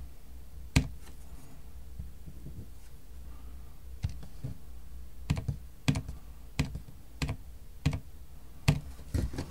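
Keys of a handheld scientific calculator being pressed: a single click about a second in, then a run of about ten unevenly spaced key clicks from about four seconds in as a calculation is entered.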